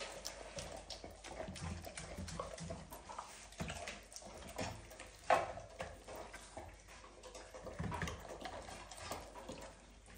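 A Rhodesian Ridgeback eating soft, wet food from a stainless steel bowl: irregular wet smacking and chewing with small clicks, one sharper than the rest about five seconds in.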